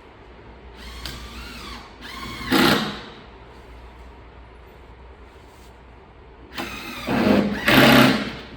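Cordless drill-driver driving screws into racking panels in two bursts, its motor pitch rising and bending as each screw runs in; the second burst is the longer and louder.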